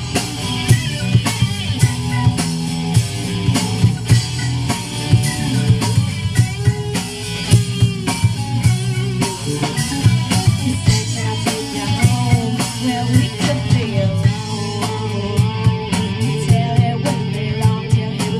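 Live band playing: a woman singing lead over electric guitar, bass guitar and a drum kit keeping a steady beat.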